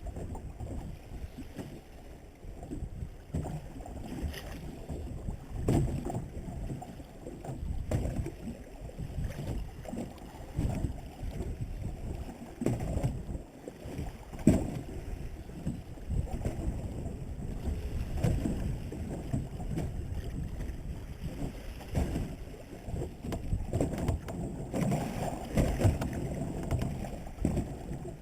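Muffled, irregular water noise with scattered knocks and clicks, heaviest in the low range.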